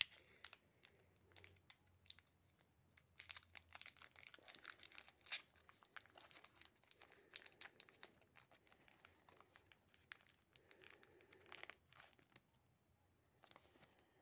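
Foil wrapper of a Pokémon Scarlet & Violet 151 booster pack crinkling and tearing as it is pulled open by hand. Faint, with the densest crackling about three to six seconds in.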